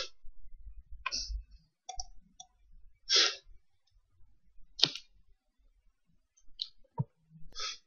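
Several short, scattered clicks of a computer mouse and its scroll wheel, picked up by the desk microphone, coming irregularly a second or so apart.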